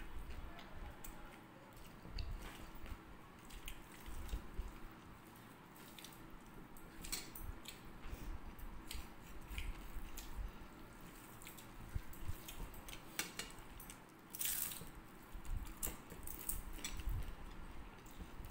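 Close eating sounds: chewing and wet mouth smacks, with fingers squishing and mixing rice and curry on plates. It comes as scattered short clicks and wet crackles.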